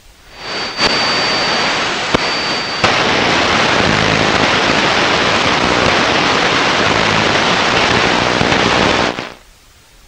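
Portable AM radio's speaker giving loud static from electrical interference as a handheld electronic device is held against it. It swells up quickly, carries a high whistle and three sharp clicks for the first few seconds, then becomes a steady loud hiss that cuts off suddenly about nine seconds in.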